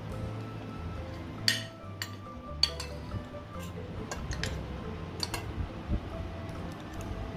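Metal spoon and fork clinking and scraping against a ceramic plate while eating, a dozen or so sharp clinks with the loudest about a second and a half and two and a half seconds in, over soft background music.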